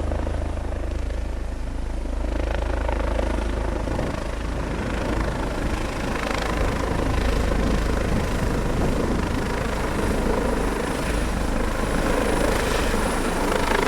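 Airbus H145 twin-turboshaft helicopter with its rotor and engines running steadily.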